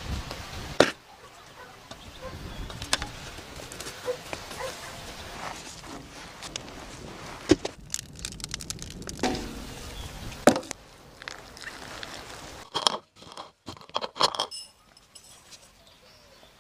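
Charcoal and firewood being handled in a brick pit oven: sharp single knocks and clatters over a steady hiss, with a wood fire crackling. A little after twelve seconds the hiss stops and a few short taps and rustles follow.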